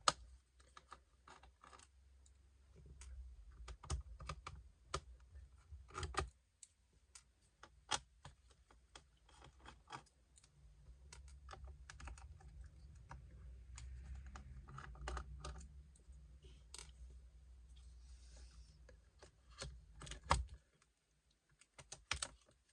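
Irregular small clicks and taps of tools and plastic parts being handled inside an opened Dell Inspiron 5570 laptop as its internal battery is disconnected and removed, with a low rumble of handling in places.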